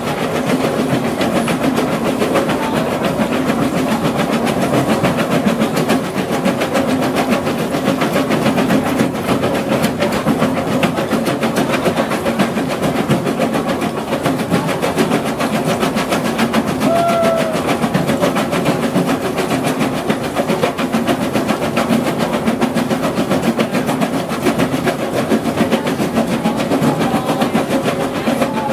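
MB BF120.4 crusher bucket on a Hyundai excavator crushing rubble: a steady, dense rattling clatter of stone as crushed material falls from the bucket, over the drone of the excavator's engine and hydraulics.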